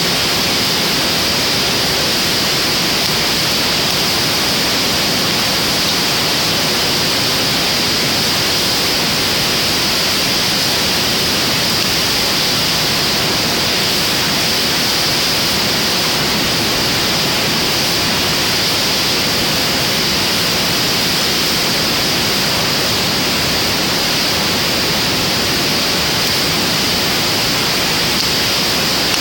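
A steady, even rushing hiss that holds the same level throughout, with no separate pops or crackles.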